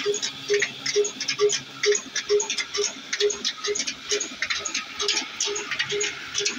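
Old Ruston stationary diesel engine running steadily while it drives a flour mill through a flat belt. A regular beat comes about twice a second under a dense, rapid clatter of sharp ticks.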